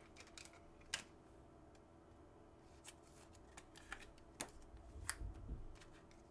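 Faint handling of trading cards: scattered soft clicks and flicks as cards are slid and flipped through, with a low bump about five seconds in.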